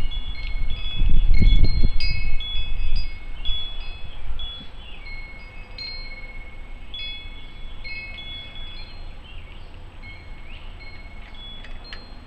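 Metal tube wind chimes ringing irregularly in the breeze, several high notes struck at random and overlapping, sparser in the later part. A low rumbling noise is loudest in the first three seconds.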